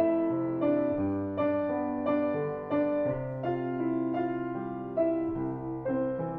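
Background music: a slow, gentle solo piano piece, with a new note or chord struck about every half to three-quarters of a second and each left to ring and fade.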